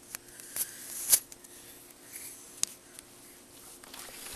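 A few sharp clicks and light rustling over a faint steady hum, the loudest click about a second in.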